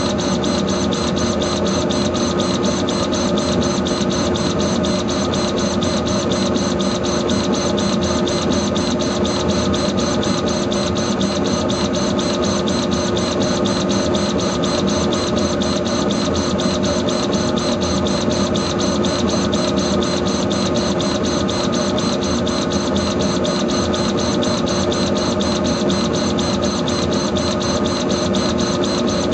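Laser engraver running while it engraves an anodized aluminium card: a steady whirring hum with one constant tone, and a fast, even pulse in it from the head's motion.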